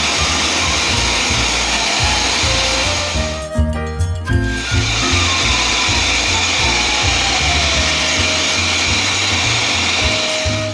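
High-velocity pet blower (force dryer) running, a steady rush of air used to blow out a shedding undercoat before the bath. It cuts out for about a second around three and a half seconds in, then comes back on.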